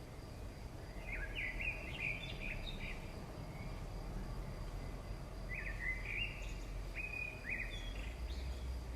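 Birds chirping in two short bursts of song, about a second in and again past the middle, over a steady low background rumble and a faint steady high tone.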